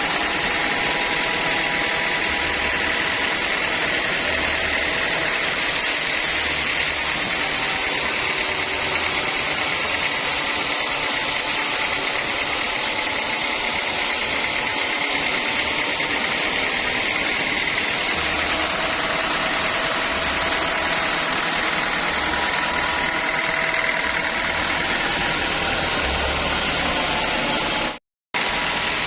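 Sawmill saw running steadily while cutting a teak log, a constant machine noise with a high whine, its pitch shifting slightly partway through. The sound drops out abruptly for a moment near the end.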